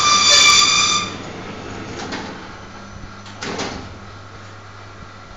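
Mini perfect binding machine running with a steady low hum. A loud, high-pitched mechanical squeal lasts about a second at the start, and two fainter clacks follow, about two and three and a half seconds in.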